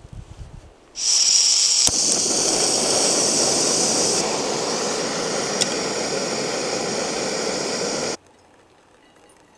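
Backpacking canister stove turned on: gas hissing out, a sharp ignition click about a second later, then the burner running with a loud, steady hiss that cuts off abruptly near the end.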